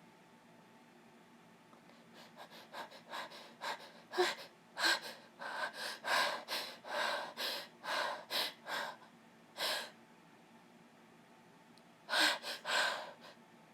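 A sick woman taking rapid, gasping, hitching breaths and sniffs as a sneeze builds. They come in a quick run of short bursts, then after a pause of about two seconds a last tight cluster near the end.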